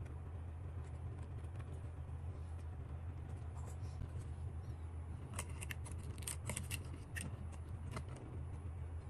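Small sharp clicks and taps of a drone's circuit board and plastic body being handled and fitted together, bunched in the second half, over a steady low hum.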